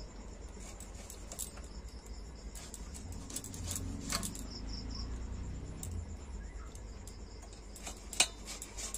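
Crickets chirping in short runs of evenly pulsed high notes, over a low steady hum. Scattered light clicks and one sharp knock near the end come from a knife cutting mangoes over a steel bowl.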